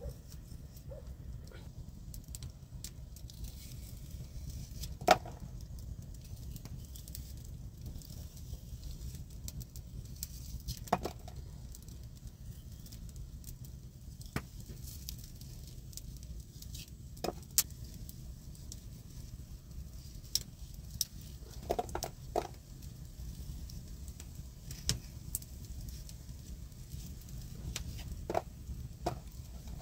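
Knife cutting raw chicken held in the hand, with the blade and dropped pieces knocking against a metal grill pan: irregular sharp clicks and taps, the loudest about five seconds in, over a steady low rumble.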